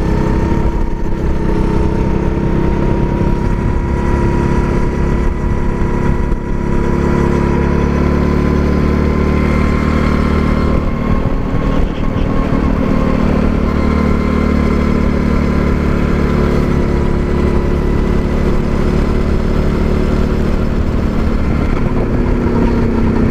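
270 cc go-kart engine running continuously from the driver's seat, its pitch held nearly steady with only slight drift: the kart is being held back by its remotely set speed limiter.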